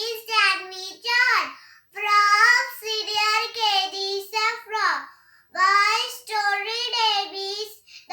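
A young child singing in a high voice, in held phrases of a second or so with short breaths between.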